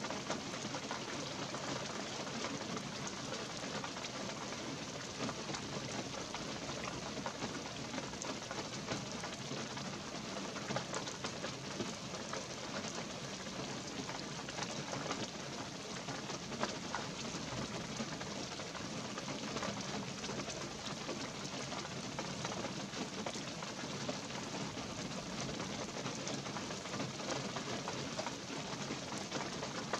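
Light rain falling steadily in pine woods: an even hiss of countless small drops ticking on pine needles, branches and the needle-covered forest floor.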